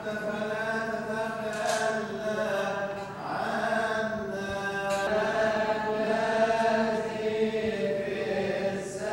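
Coptic Orthodox liturgical chant: voices singing long, drawn-out held notes that glide slowly from pitch to pitch.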